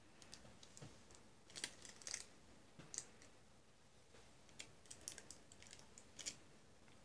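Near silence broken by faint, irregular clicks and light taps, some singly and some in quick little clusters.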